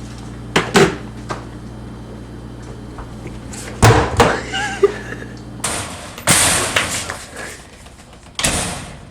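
A few sharp knocks and bangs, then two longer bursts of rustling, scraping noise.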